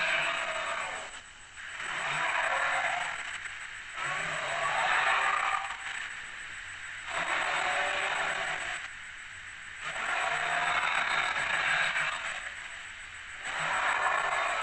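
Tarbosaurus dinosaur sound effect: a string of about six hoarse, breathy roars in quick succession, each lasting a second or two.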